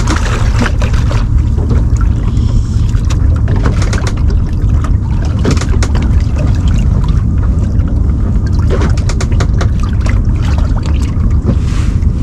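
Small fishing boat on the water: a steady, loud low rumble with scattered sharp ticks throughout.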